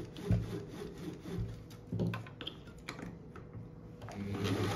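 Clicks and knocks of parts being handled on an opened-up overlock sewing machine, then about four seconds in its electric motor starts and runs steadily with a low hum.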